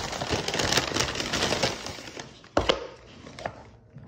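Paper food wrapper crinkling and rustling for about two seconds as a sandwich is handled, then a single sharp knock and some quieter handling noise.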